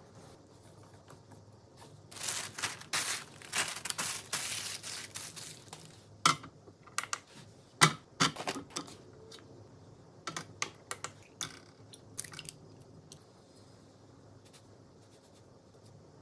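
Wire whisk scraping rapidly against a glass mixing bowl as it stirs madeleine batter, sped up to double speed. Then a series of separate sharp clicks and knocks, the loudest near the middle, as kitchenware is handled on a kitchen scale.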